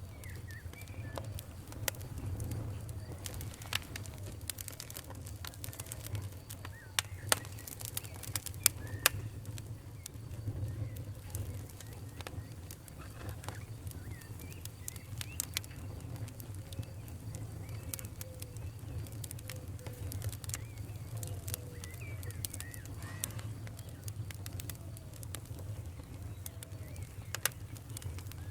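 Wood fire burning in a fireplace: steady crackling with sharp pops over a low, even rumble of the flames. The loudest pops come in a cluster about a quarter of the way in.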